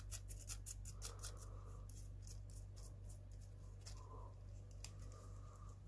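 A quick run of small sharp clicks, about five a second, thinning out after about two seconds to scattered taps: fingers threading a small nut onto a roller screw on a Mini 4WD car's plastic chassis.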